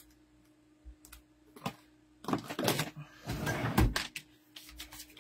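Paper and craft tools handled on a table: a few sharp clicks, then rustling and clattering, loudest a little past halfway, with light ticks near the end. A faint steady hum runs underneath.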